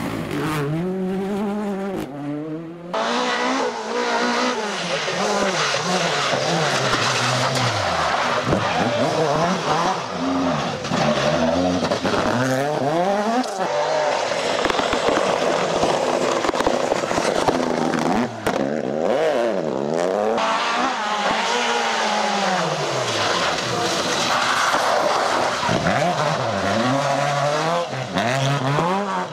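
Rally cars driven flat out past the spectators one after another, engines revving high and dropping back through gear changes as they brake and accelerate through the bends, with some tyre noise.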